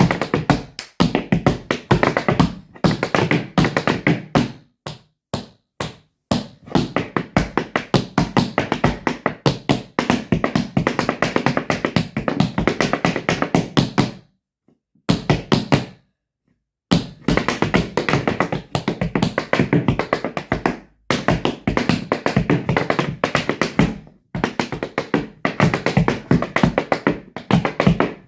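Rapid, dense runs of sharp tapping and knocking over music, stopping dead twice for about a second near the middle.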